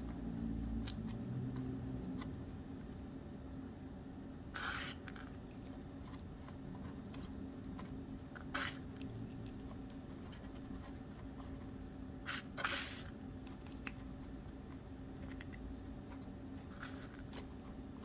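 Hands handling a potted orchid cutting, its soil and bark chips: a handful of short rustles and scrapes over a steady low room hum.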